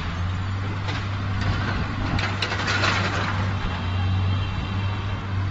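Forklift's diesel engine running with a steady low hum, with a few faint clatters between about one and three seconds in.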